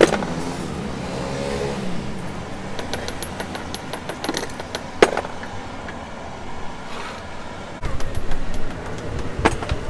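Sharp metal knocks and clinks from hand work on a starter-motor armature, a few separate strikes with the loudest about five seconds in, over steady road-traffic noise.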